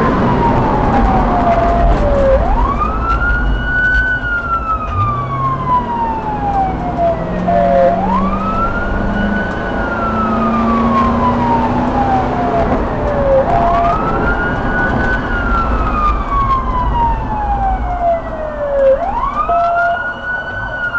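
Police car siren on a wail, each cycle rising quickly in pitch and then falling slowly, repeating about every five and a half seconds, over the engine and road noise of the moving car, which rises in pitch for a few seconds about a third of the way in as the car accelerates.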